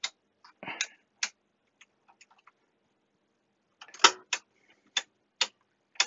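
Front-panel rotary switches of a C1-118 oscilloscope clicking through their detents as the knobs are turned: single sharp clicks at uneven intervals, with a quick run of clicks about four seconds in.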